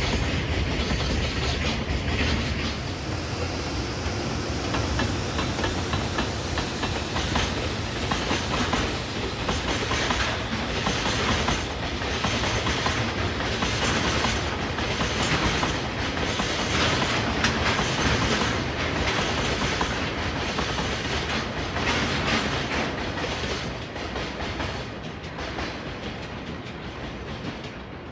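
Freight train of oil tank cars rolling past, its wheels clicking rhythmically over the rail joints with a dense steady rumble. It eases off over the last few seconds as the train draws away.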